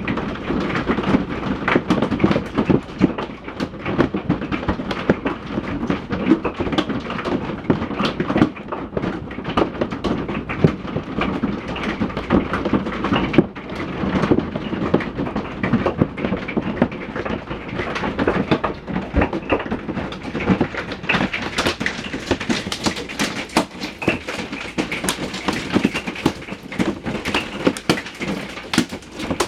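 Hail coming down hard: a dense, continuous clatter of hailstones striking hard surfaces.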